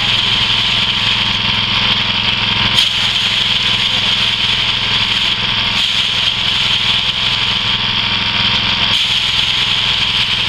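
Engine-driven rice thresher running steadily: a small petrol engine turning the spiked threshing drum while bundles of rice stalks are fed in to strip the grain.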